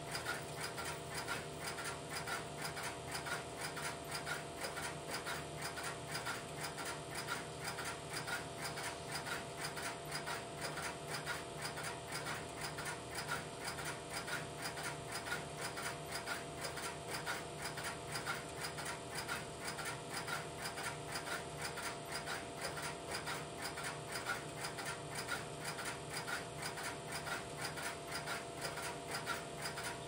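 Interrupter relays of an idle Strowger step-by-step telephone switch clicking in a rapid, even rhythm over a steady hum.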